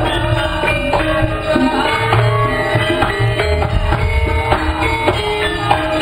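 Javanese gamelan playing wayang accompaniment: bronze kettle gongs struck in quick, ringing pitched notes over steady drumming.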